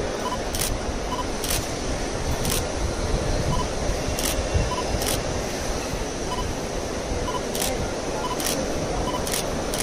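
Camera shutters clicking sharply at irregular intervals, roughly once a second, with short faint beeps in between, over a steady background rumble.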